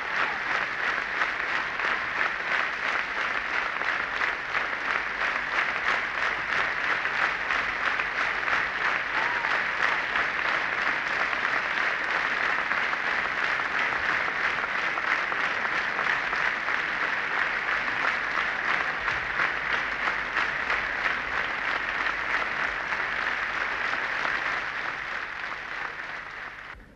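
Arena audience applauding, a steady dense clatter of many hands that fades out near the end.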